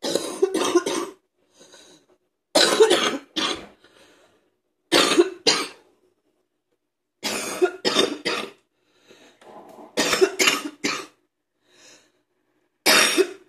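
A woman's wet morning cough: six fits of two or three quick coughs each, coming every two to three seconds, with faint breaths between the fits.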